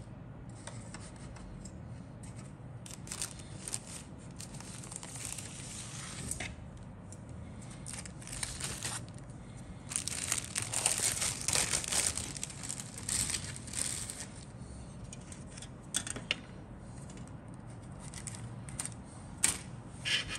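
Thin clear plastic bag rustling and crinkling as hands handle plastic model-kit sprues inside it, loudest around the middle, with a few sharp clicks near the end.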